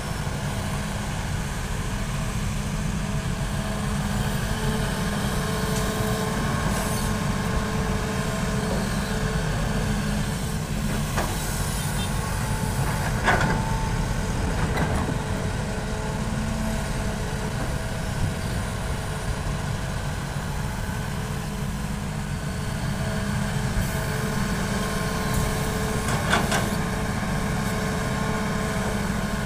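Hitachi hydraulic excavator's diesel engine running steadily at working revs, with a steady whine over the low rumble and a few sharp knocks, the loudest about thirteen seconds in and another near the end.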